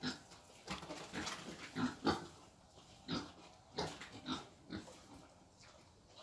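Wild boar rooting at the pen floor, giving a string of short grunts and snuffles that die away about five seconds in.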